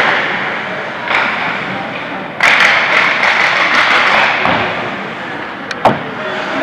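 Ice hockey play in an indoor rink: a sharp crack of stick or puck at the start and another near the end, with a louder stretch of hissing rink noise lasting about two seconds in the middle.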